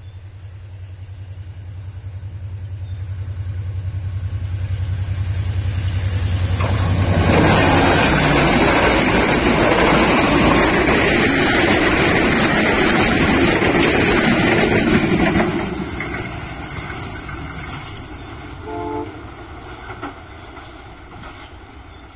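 Sri Lanka Railways Class M2 diesel-electric locomotive and its express train passing: a steady low diesel drone that grows louder as it approaches, then the loud clatter of the coaches' wheels on the rails for several seconds as the train goes by, fading as it recedes. A short horn note sounds near the end.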